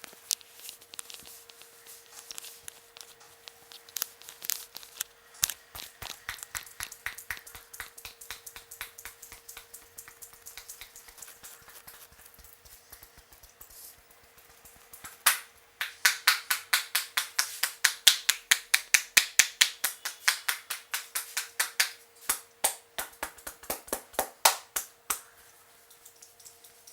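Sharp clicks and slaps of hands striking and snapping around a head during an Indian head massage, coming in irregular runs. About halfway through they get louder and quicker, about four or five a second. A faint steady hum sits underneath.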